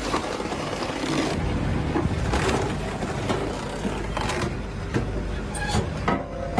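Firewood processing machinery running steadily, with repeated sharp knocks and clatter as logs are cut, split and tumble onto the conveyor.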